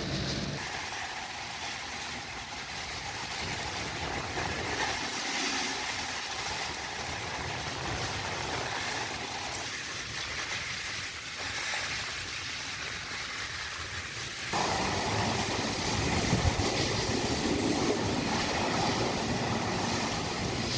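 Tropical-storm wind and heavy rain, a steady rushing hiss. About two-thirds of the way through, a deeper rumble of wind gusts suddenly joins it.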